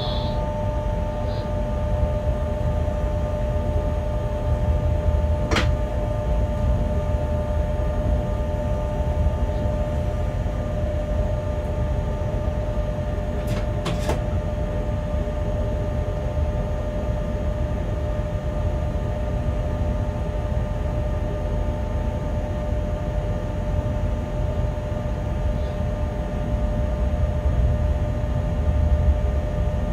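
Bombardier Traxx BR 186 electric locomotive moving slowly, heard from its cab: a steady low rumble with a constant two-tone hum over it. A sharp click comes about six seconds in, and two more close together around fourteen seconds.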